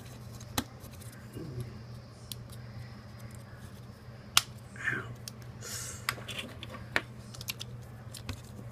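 Batteries and a small plastic battery pack being fitted by hand: scattered clicks and rattles, with a few sharper snaps about half a second, four and a half and seven seconds in.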